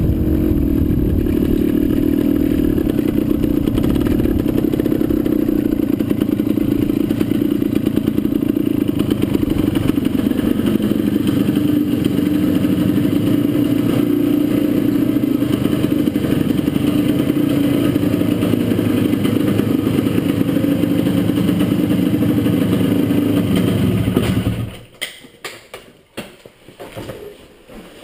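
Honda MT250's two-stroke single-cylinder engine running steadily at low speed, then switched off abruptly about three-quarters of the way through. A few faint knocks and clunks follow as the bike is handled.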